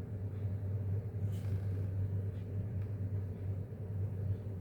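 Steady low hum with a faint click about a second in.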